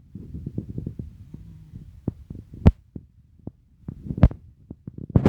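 Wind buffeting the microphone: uneven low rumbling gusts, with a few sharp knocks, the loudest about two and a half and four seconds in.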